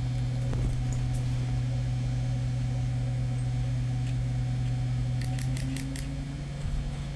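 Desktop computer running with a steady low hum, and a quick run of light clicks about five seconds in.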